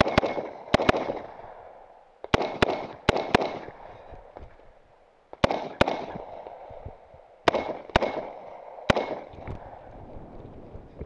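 Semi-automatic rifle shots fired in quick pairs and short strings, about a dozen in four groups with pauses between, each shot trailing an echo.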